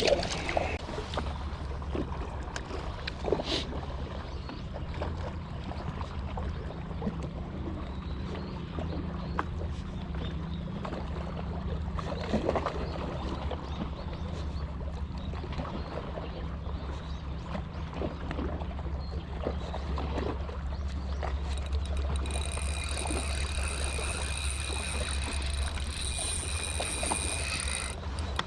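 Boat engine running with a steady low drone. A high-pitched whine joins it about twenty-two seconds in and cuts off near the end.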